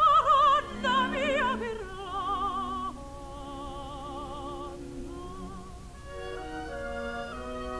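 Opera music: a singer holding notes with wide vibrato over the first few seconds, then softer orchestral accompaniment of held notes changing in steps.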